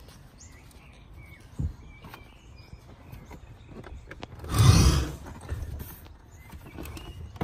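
Handling noise from a removable rear seat of a Mercedes-Benz A160 (W168) being shifted in the boot: a few light knocks, then one loud bump and scuff about four and a half seconds in.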